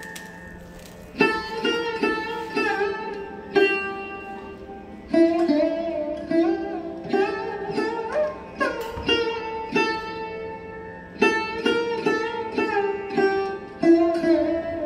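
Instrumental background music: plucked string notes, sitar-like, over a steady low drone.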